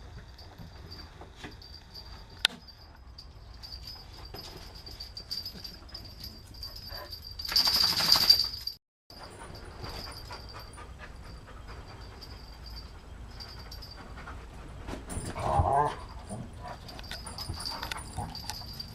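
A Rhodesian Ridgeback and a small white dog play-fighting on a blanket-covered sofa: scuffling and blanket rustling, a loud noisy burst about eight seconds in that cuts off abruptly, and a short dog vocalization about fifteen seconds in. A faint steady high whine runs underneath.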